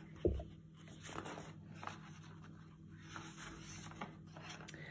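Pages of a hardback picture book being turned by hand: faint paper rustling and sliding, with a soft knock shortly after the start.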